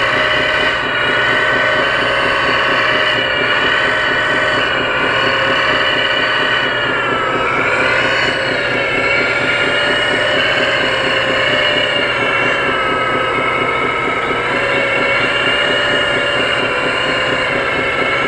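Hydraulic pump of a 1/14 scale RC CAT 330D excavator whining steadily as the boom and bucket work, sagging in pitch for a moment about seven seconds in, then recovering. Under it runs the fast, even throb of a simulated diesel engine from the model's sound module.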